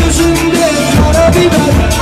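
Loud amplified dance music with a singing voice over drums.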